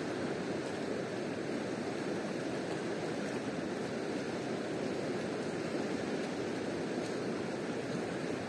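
Steady rushing of a fast-flowing river, an even, unbroken wash of water noise.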